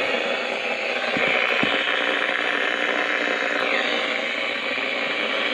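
Weather radio receiver giving out steady static hiss with light crackle: its NOAA station has been knocked off the air and the signal is down to one bar.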